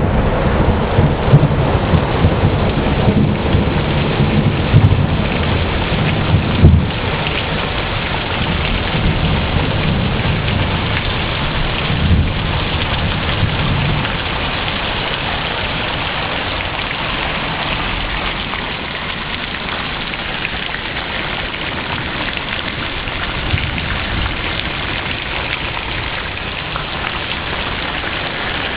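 Heavy rain pouring steadily in a thunderstorm, with low thunder rumbling through the first half and a louder burst of thunder about seven seconds in; the rumbling fades out about halfway, leaving the downpour.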